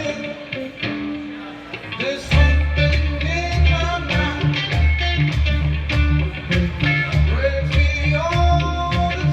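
Live rock music. A lighter passage gives way, about two seconds in, to a heavy bass line and a steady beat, with a melody line sliding in pitch above.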